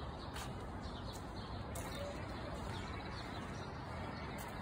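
Steady outdoor background noise with faint birds chirping and soft footsteps on paving stones.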